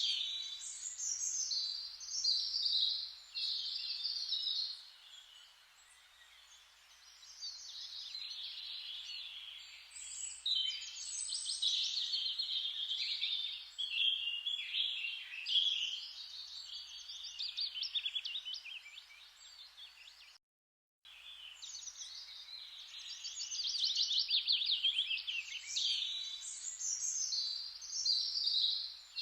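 Songbirds singing and chirping, several voices overlapping with rapid trills, over a faint steady hiss. The sound cuts out completely for about half a second a little past the middle.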